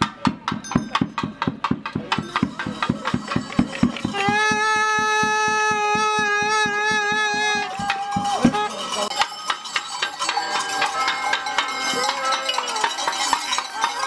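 Metal clanging from frying pans beaten with sticks in a fast, even rhythm of about five strikes a second, with a long held note over it in the middle. About eight and a half seconds in, the clanging stops and music takes over.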